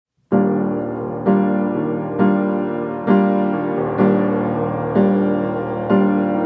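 Background music: piano chords struck about once a second, each fading before the next.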